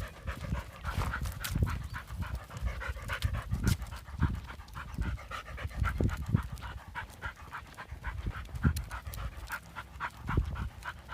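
A dog panting in quick, even breaths, a few per second, with irregular low thumps underneath.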